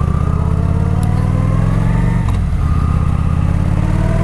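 Kawasaki Vulcan 900 Classic's V-twin engine, stock exhaust, accelerating under way, heard from inside the rider's helmet. The pitch climbs, drops briefly a little over halfway through as it shifts up a gear, then climbs again.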